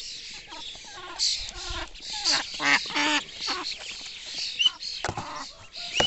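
Ducklings peeping in short high cheeps while adult ducks give a run of low calls, with pecking and scuffling at birdseed on the soil.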